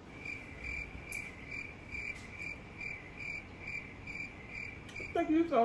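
Cricket chirping, a regular chirp a little more than twice a second, starting and stopping abruptly: the stock "crickets" effect for an awkward silence. A voice comes in near the end.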